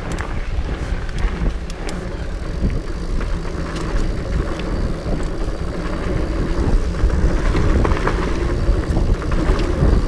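Trek Farley EX 8 fat bike rolling fast down a dirt trail: a steady tyre rumble with scattered rattles and knocks from the bike, and wind buffeting the microphone. It grows louder in the second half as the bike gathers speed.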